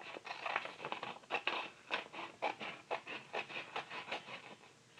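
Scissors snipping straight across a sheet of watercolour-painted paper: a quick run of short, crisp cuts, about four a second, that stops near the end.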